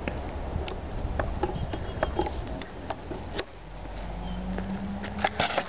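Light scattered clicks and scuffs of shoes stepping on asphalt over a low outdoor rumble, with a brief steady hum about four seconds in and a few louder clicks near the end.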